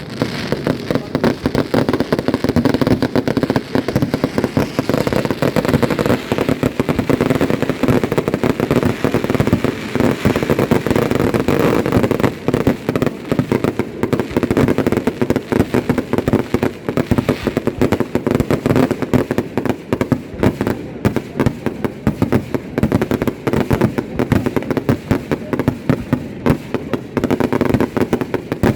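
Fireworks display: a dense, unbroken run of rapid bangs and crackles.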